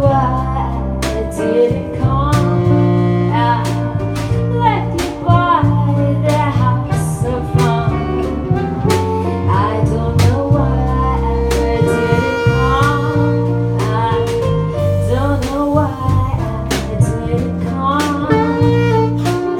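Live song: a singer's voice carrying the melody over jazzy band accompaniment with a steady bass line and a regular drum beat.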